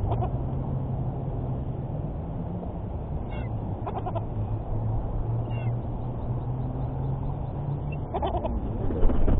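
Birds calling several times with short, separate calls over a steady low hum, with a louder low bump near the end.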